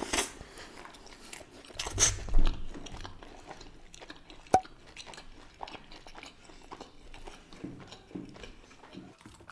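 Close-miked chewing of a mouthful of flatbread with paneer korma, with louder mouth noises about two seconds in and a single sharp click about halfway through.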